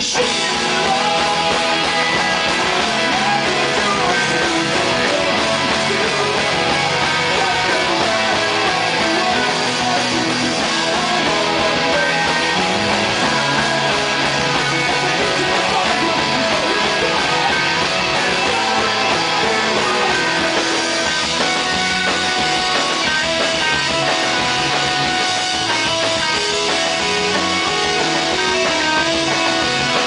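A live rock band playing loud, guitar-led music, with electric guitar, bass guitar and a singer, without a pause.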